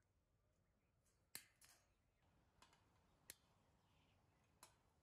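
Faint, sharp metallic clicks from pliers working the tie wire that holds a steel flat bar to a chain-link fence: about half a dozen clicks at irregular intervals, over otherwise near silence.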